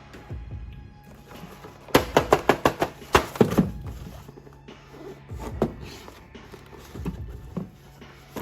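A quick run of about eight sharp clicks or knocks about two seconds in, then a few single knocks, over a low steady hum.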